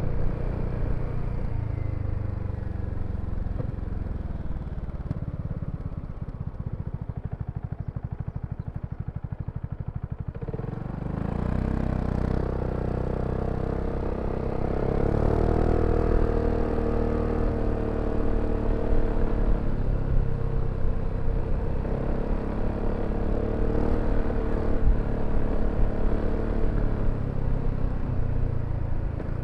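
BMW C400X scooter's single-cylinder engine easing off to a steady pulsing idle, then pulling away about ten seconds in, its pitch rising and falling as it runs through the speed range.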